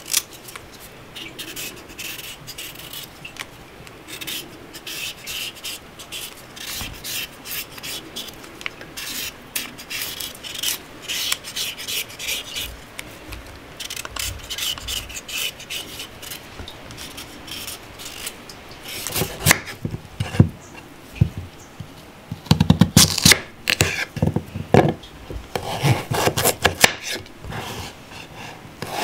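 Kitchen knife scraping the skin off a raw carrot in quick repeated strokes. About two-thirds of the way through, the sound changes to the knife cutting the carrot into chunks, with sharper knocks on a wooden cutting board.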